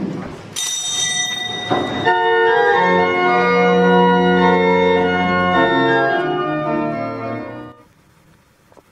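Organ playing slow, sustained chords that fade out near the end.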